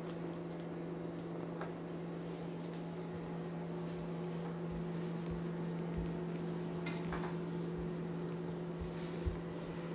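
Ceramic knife slicing raw chicken breast on a cutting board: a few soft knocks and light clicks of the blade on the board, over a steady low hum.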